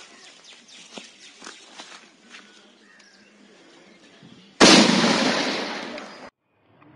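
A firecracker packed inside a coconut explodes with a loud bang about four and a half seconds in, after faint crackling from its burning fuse. The noise of the blast dies away over a second or so and then cuts off suddenly.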